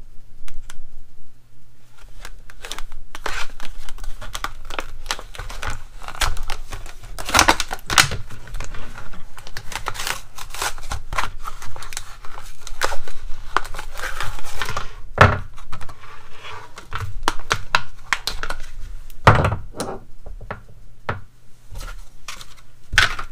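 Retail packaging of a pair of pliers being torn and crinkled open by hand, with many clicks and knocks as the pack and tools are handled, and a couple of louder knocks in the second half.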